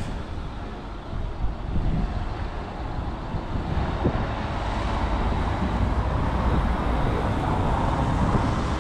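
Road traffic on a wet cobbled street: cars and a van driving by, tyres rumbling over the setts, getting louder in the second half as a vehicle passes close.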